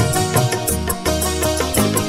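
Instrumental music with a steady beat and a bass line.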